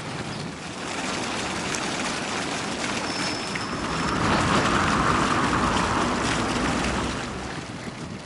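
Small fountain jets splashing steadily into a shallow pool, swelling louder in the middle.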